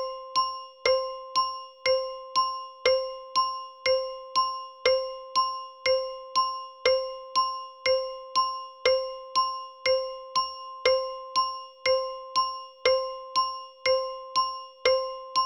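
Bell sound effect ringing over and over at one pitch, about two dings a second, each fading quickly before the next, like a repeating alert.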